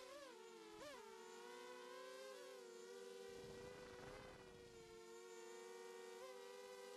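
ZMR 250 quadcopter's Cobra 2204 brushless motors spinning Gemfan 5x3 propellers in flight, a faint buzzing whine heard from the onboard camera. The pitch jumps up briefly twice in the first second as the throttle is blipped, then holds steady with two close tones.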